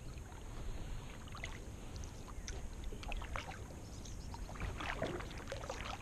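Kayak paddle strokes in calm lake water: blades dipping, splashing and dripping, busiest about three and five seconds in, over a steady low rumble.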